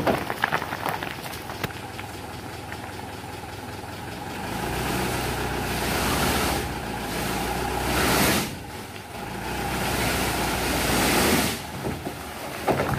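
Dump truck tipping a load of fill sand and stones: stones first trickle and clatter off the raised bed, then from about four seconds in the truck's engine is revved in swells, rising and falling, to work the tipper's hydraulic hoist, dropping back suddenly near the end.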